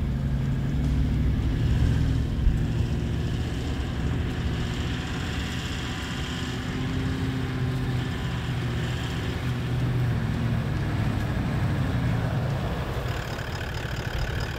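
Toyota LandCruiser 70 Series ute's engine running as the truck drives slowly along a dirt track and pulls up. The engine note wavers slightly as the throttle changes.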